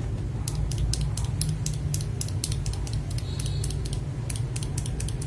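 Mechanical keyboard switches being pressed repeatedly by hand, a quick series of sharp clicks about four a second.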